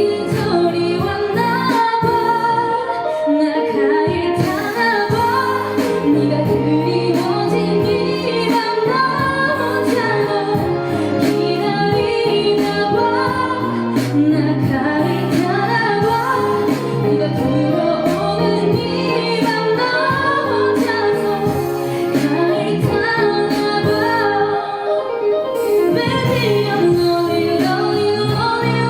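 A woman singing a ballad over a steady musical accompaniment.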